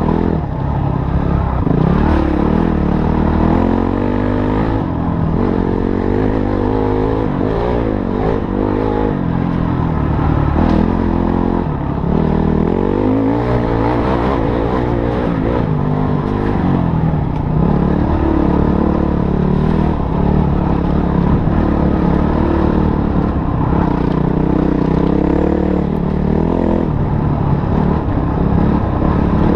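Motorcycle engine running off-road, its pitch rising and falling over and over as the throttle is opened and closed, with rattling and clatter from the bike over rough ground.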